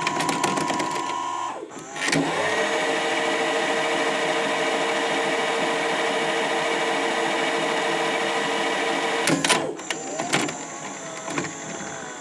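Tape-rewind sound effect: a tape machine's motor whirs, cuts off about a second and a half in, then spins up again into a steady whine. The whine holds for about seven seconds and ends in a cluster of mechanical clicks and clunks.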